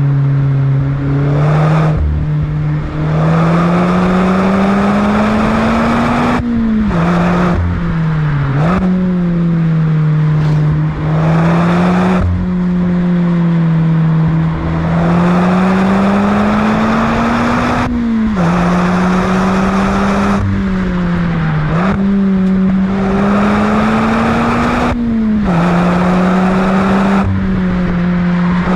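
Mazda MX-5's 2.0-litre four-cylinder engine through a Friedrich Motorsport Group A cat-back exhaust, driven hard. Its note climbs steadily in pitch for several seconds, then drops sharply at each upshift, about four times over.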